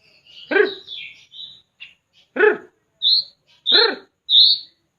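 White-rumped shama (murai batu) giving short high chirps between three loud, harsh, rasping cough-like calls about every second and a half. The coughing marks a sick bird whose song has turned hoarse.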